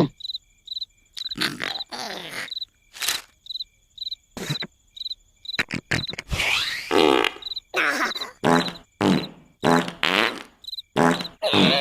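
Cartoon larva character snoring in a run of short repeated bursts, irregular at first and settling to about two a second near the end, over a cricket chirping in a steady rhythm.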